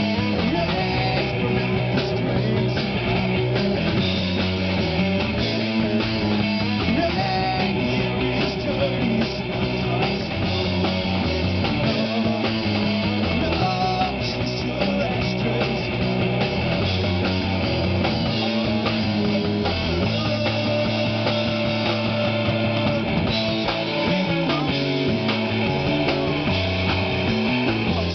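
Rock band playing without a break, electric guitar over a drum kit.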